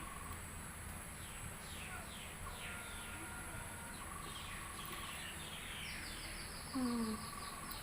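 Birds chirping in the background: several short calls that slide downward in pitch, and a few held whistled notes, over a low steady hum. A brief voice-like sound comes near the end.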